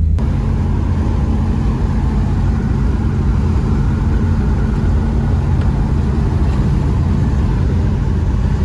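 Supercharged Holden Kingswood wagon cruising at road speed, heard from inside the cabin: a steady engine drone under heavy wind and road noise.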